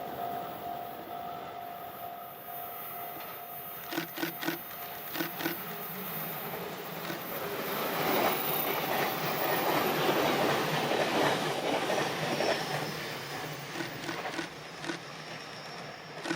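Train on the Chuo Main Line passing over a level crossing. Groups of wheel clacks over rail joints come about four seconds in, the running noise swells to its loudest midway, and more clacks come near the end as the last cars pass.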